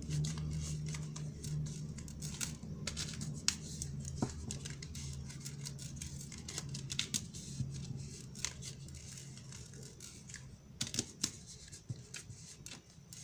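A deck of baralho cigano (Lenormand) cards being shuffled by hand: a run of irregular soft papery flicks and slaps as the cards are cut through each other.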